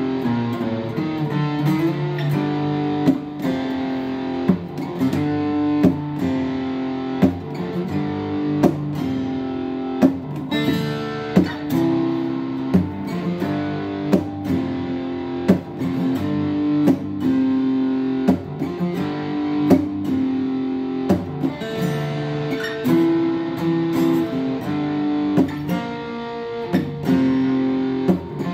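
Acoustic guitar played in a slow, steady rhythm, a new chord struck about every second and a half and left ringing until the next.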